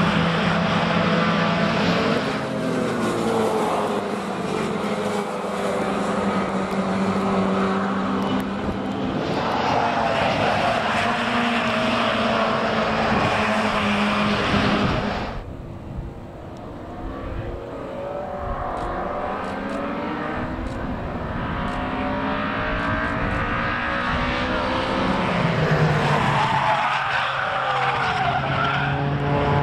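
Several historic racing cars, mostly classic Minis with their small four-cylinder engines, running hard together through a corner, their pitches rising and falling as they accelerate and change gear. The sound drops suddenly about halfway through, then another group of racing cars builds up again.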